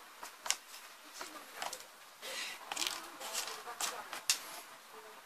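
Light handling sounds on a workbench: scattered small clicks and taps as tools are moved about, with a brief rustle about two seconds in.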